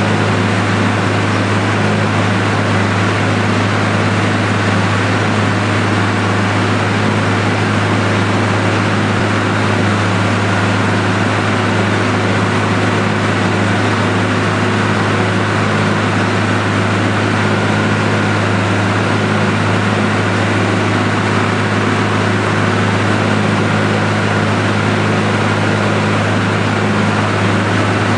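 Penta TMR feed mixer running steadily while its vertical auger turns and processes hay in the tub: an even, low mechanical hum with no change in pitch or load.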